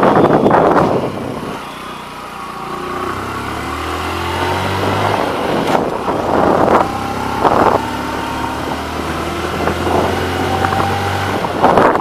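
Motorcycle engine pulling uphill. Its pitch rises over a few seconds, then holds steady. Wind buffets the microphone at the start.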